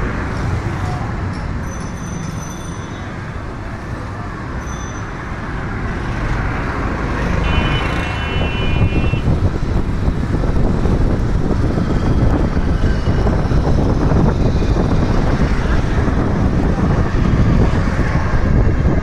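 Busy road traffic heard from among the vehicles: a steady rumble of engines and tyres that grows louder in the second half. About eight seconds in there is a short high-pitched tone.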